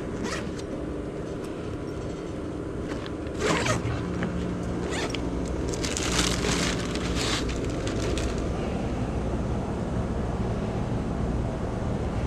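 Steady engine and road rumble of a car heard from inside the cabin, with short rustling and scraping sounds about three and a half seconds in and again around six to seven seconds.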